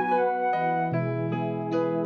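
Soft instrumental background music: gentle piano-like melody notes over held low tones.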